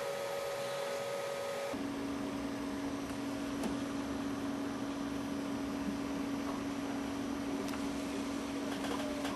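Steady hum over a background hiss, its tone stepping down in pitch a little under two seconds in, with a few faint clicks.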